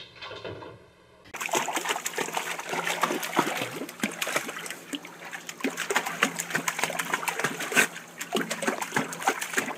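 Water splashing and sloshing as a small terrier paddles about in a bathtub of water, with a dense patter of quick irregular splashes. It starts suddenly about a second in, after a brief quieter stretch.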